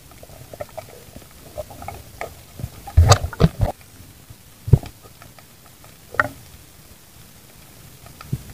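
Irregular muffled knocks and clicks heard underwater, likely handling noise on the camera or gear. A cluster of louder thumps comes about three seconds in, with single sharp knocks near five and six seconds.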